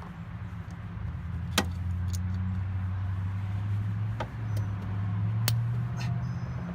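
Pickup truck engine running at idle, a steady low hum that grows louder about a second in, with a few sharp clicks and taps over it.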